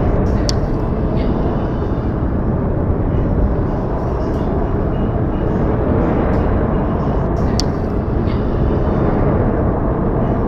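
Outdoor recording of snowfall on branches and ground: a steady low rushing noise with a few faint ticks.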